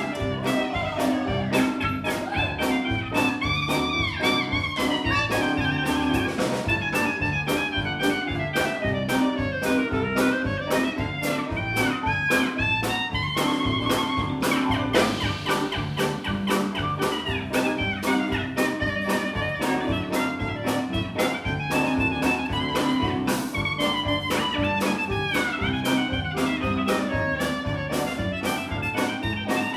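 Live jazz band playing an instrumental break of a swing-style song: a lead instrument runs quick rising and falling lines over a steady bass and a busy, even beat.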